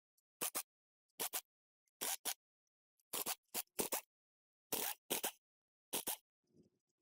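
Short rasping scrape strokes, mostly in quick pairs about once a second, with dead silence between them.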